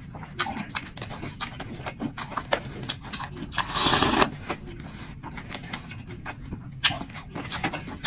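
A person eating with mouth noises: chewing, wet smacks and clicks, and one louder breathy rush lasting about half a second about four seconds in.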